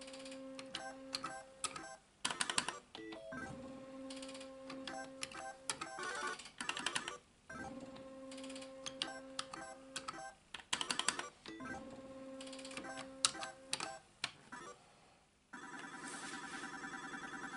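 Solex 2 pachislot machine played through about four games in a row. Each game starts with a clack and a held electronic tone while the reels spin, then several sharp clicks as the stop buttons are pressed and the reels stop. Near the end a steady, fast-repeating electronic bell-like ringing starts and carries on.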